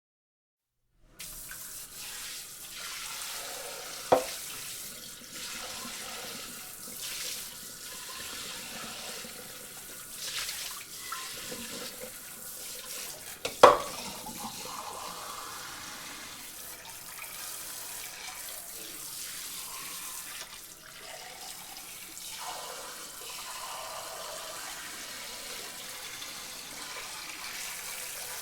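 Dish sprayer hosing water over dishes in a sink: a steady hiss of spray starting about a second in, with two sharp knocks, the louder one about halfway through.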